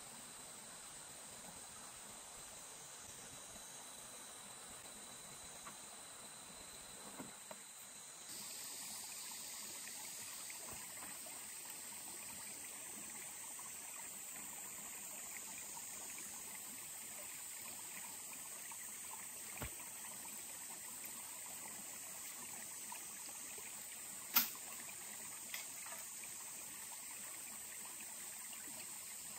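Faint forest ambience with a steady chorus of insects, crickets among them. The background changes abruptly about eight seconds in, and a few sharp clicks or snaps sound later, the loudest about two-thirds of the way through.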